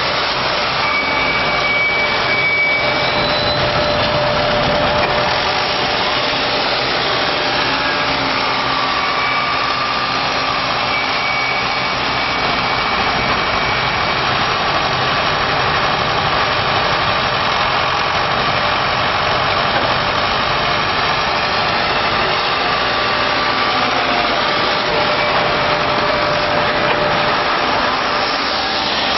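Large 220 kW industrial wood chipper-crusher running: a loud, steady mechanical din with faint whining tones that come and go.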